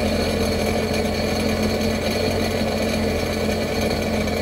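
Sea-Doo Challenger jet boat's right inboard engine idling steadily while RV antifreeze is pumped through its cooling system to winterize it.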